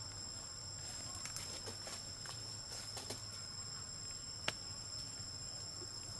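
Steady high-pitched insect drone at two pitches, with scattered faint rustles and one sharp click about four and a half seconds in.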